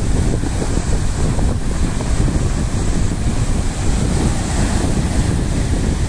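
Wind buffeting the microphone over the steady rush of rough sea waves breaking and washing up a shingle beach.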